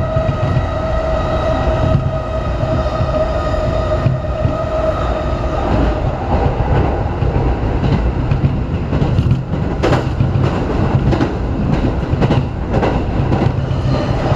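Running noise inside a JR Keiyō Line electric train: a steady low rumble with a high whine that fades about five seconds in, then wheels clicking over the rails.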